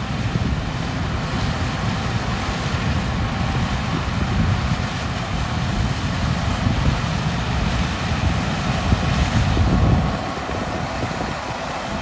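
Case IH 2388 combine harvester running steadily while harvesting corn, its engine and machinery giving a continuous low rumble.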